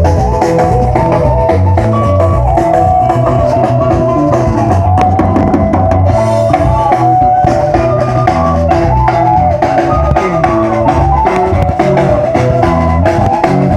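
Band music at a sound check: a drum kit playing throughout, with bass notes and a melodic lead line on top.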